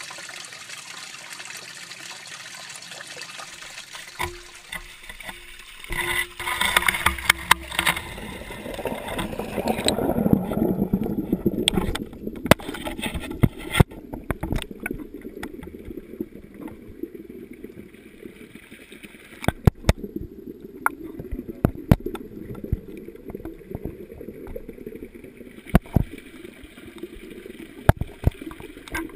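Water trickling into a fish tank, then splashing as a handheld camera is plunged into the water, followed from about twelve seconds in by the muffled, dull sound heard from underwater, broken by scattered sharp knocks.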